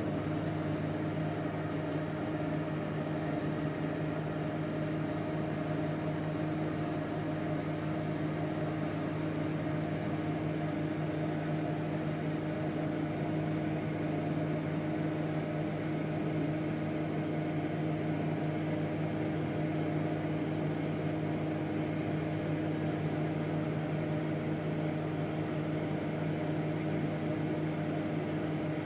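Samsung microwave oven running, a steady electrical hum over its fan noise, with no popcorn kernels popping.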